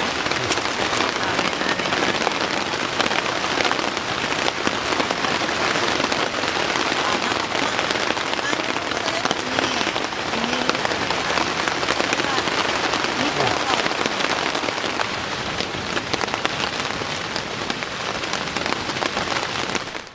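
Steady rain falling, dense with the ticks of individual drops striking a surface; it cuts off suddenly at the end.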